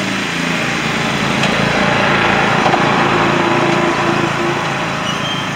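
Two riding lawn mowers racing side by side past close by, their small engines running hard. The engine note grows louder and its pitch shifts as they pass about two to three seconds in, then eases as they move off.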